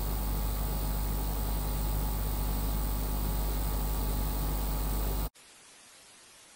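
Steady electrical hum and hiss from an open studio microphone line, cutting off suddenly about five seconds in to dead silence.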